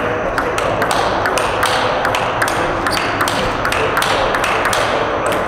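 Table tennis rally: the ball clicks sharply off the rackets and the table, about three or four hits a second, in an even rhythm.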